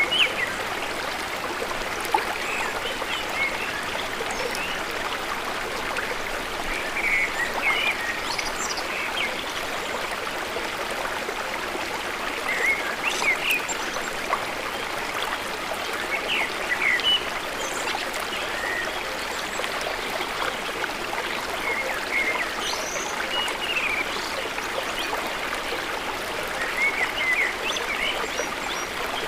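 A river swollen by floodwater rushing steadily, with birds giving short chirps now and then.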